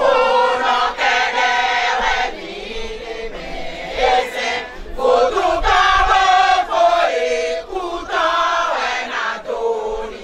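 Women's chorus singing a chant together, in phrases a few seconds long with brief pauses between.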